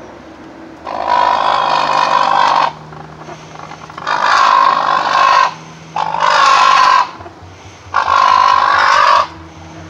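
West African crowned cranes (black crowned cranes) giving four loud, harsh calls, each one to two seconds long, as a person approaches their chick.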